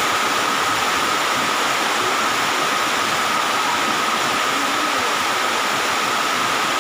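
A steady rushing hiss with a thin, high whine running through it.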